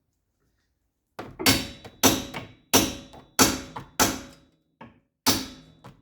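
Hammer blows on a seized, heat-soaked steel wheel hub that will not break free: about eight hard metallic strikes starting about a second in, roughly one every two-thirds of a second, each ringing briefly.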